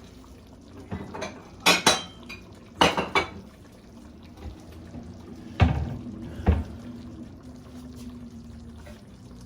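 Dishes and a utensil clinking as stew is served onto a small plate: a few sharp, ringing clinks, then two duller knocks a few seconds in.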